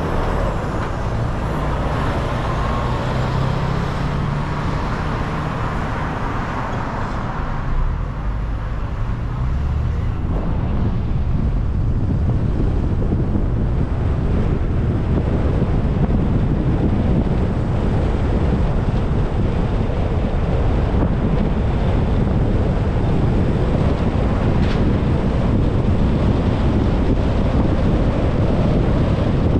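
Car being driven, heard as steady road and wind noise on a GoPro microphone. For the first ten seconds or so an engine hum stands out; after that the noise grows steadier and deeper.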